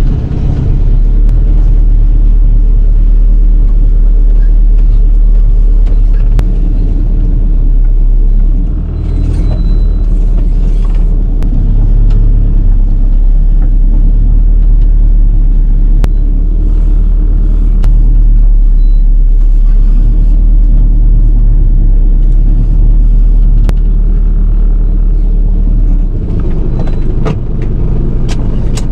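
Vehicle engine running steadily, heard from inside a van's cab as it is driven slowly. The engine dips briefly about eight seconds in and eases off again near the end.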